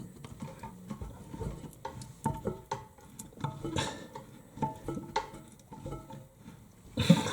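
Adjustable wrench working a toilet's closet-bolt nut: scattered light metallic clicks and clinks as the nut is tightened down against the porcelain base. A brief louder noise comes near the end.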